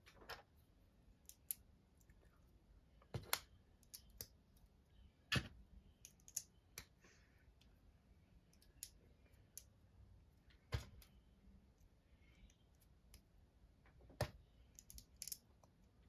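Plastic Lego pieces clicking and tapping as they are picked up, set down on the table and pressed together, in scattered single clicks a second or several apart.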